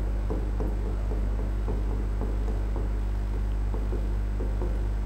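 Steady low electrical hum, with faint irregular scratches and taps of a pen writing on a board.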